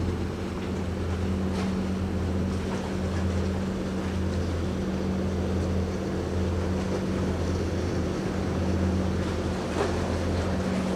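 Steady low drone of a ship's engines, with wind and water noise.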